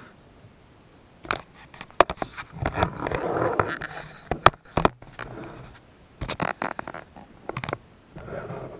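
Handling noise as the camera is picked up and repositioned on a table: irregular clicks and knocks starting about a second in, a stretch of scraping and rubbing in the middle, then more clusters of clicks and a softer rustle near the end.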